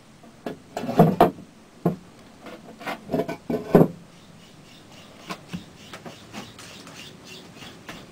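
Knocks and scrapes of a rock cave ornament being handled and set in place on top of a hide, loudest in the first four seconds, then a few faint ticks.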